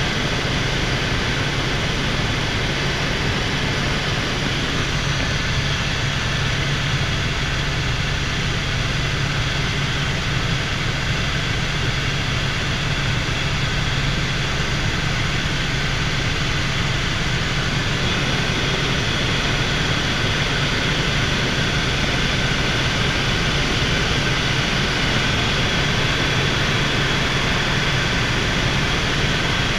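Helicopter in flight, heard from inside the cabin: the engine and main rotor run at a steady drone, with a constant low hum and a higher whine above it.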